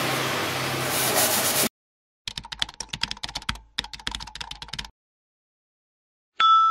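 Keyboard-typing sound effect: two runs of rapid key clicks with a short break between them, as the end-card text comes up. Before it a steady hiss cuts off about two seconds in, and a bell-like ding starts just before the end.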